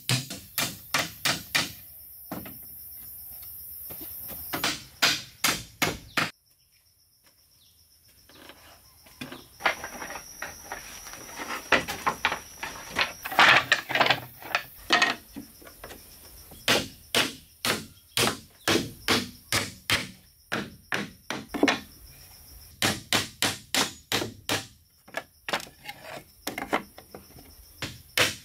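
Hammer nailing wooden floorboards down onto joists: runs of quick blows, about three to four a second, broken by short pauses.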